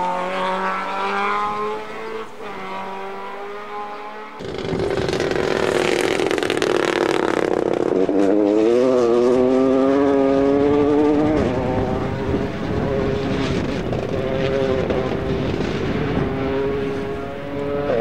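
Rally cars at speed, engines revving up and down through gear changes. About four seconds in the sound switches abruptly to a louder car close by, running hard with a rush of noise, its engine note wavering briefly in the middle.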